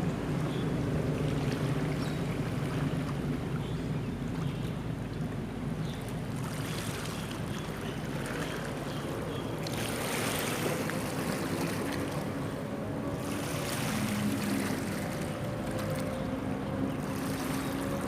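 Engines droning steadily, their pitch shifting slightly, with swells of rushing noise about six, ten and thirteen seconds in.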